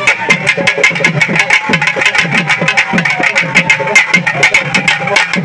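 Loud drumming with rapid, steady strikes, several a second, under a wavering pitched melodic line.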